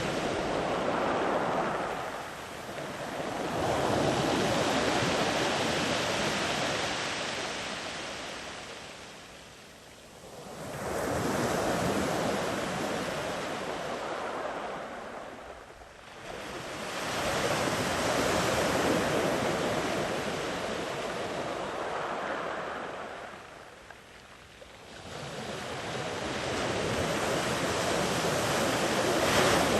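Sea waves breaking and washing up a sandy beach, a steady rushing that swells and fades in long surges, with a lull about every six to eight seconds.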